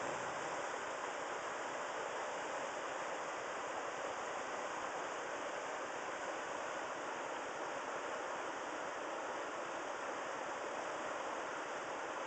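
River rapids rushing steadily, the constant hiss of whitewater in a river chute.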